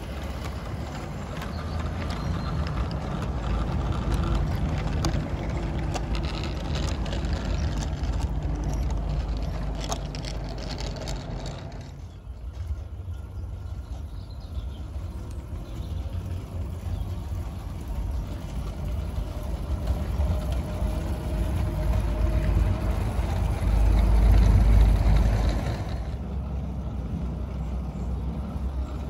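Battery-powered 16mm-scale model of the narrow-gauge locomotive Welsh Pony hauling its train on a garden railway: wheels rolling and clicking over the track with a faint motor whine, loudest in the first part while the train passes close by. A low rumble runs underneath and swells briefly near the end.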